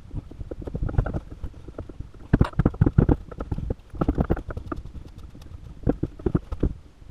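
Wood screws being driven by hand with a screwdriver through steel L brackets into a wooden frame: a run of irregular clicks and knocks, loudest in a cluster about two and a half to three seconds in.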